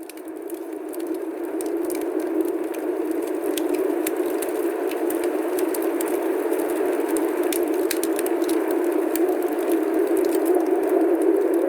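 Snowstorm wind: a steady rushing that fades in at the start, with scattered faint ticks.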